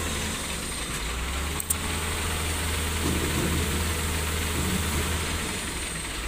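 SANY crawler excavator's diesel engine running steadily as the machine climbs a trailer ramp, with a single sharp click about a second and a half in.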